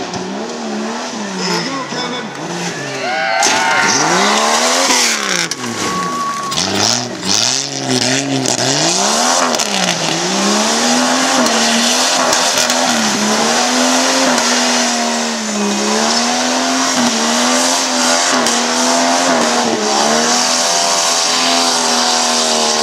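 An off-road SUV's engine revving hard, its pitch swinging up and down again and again, then held high for a long stretch while the tyres spin and throw dirt. Heavy rushing noise joins it about three seconds in.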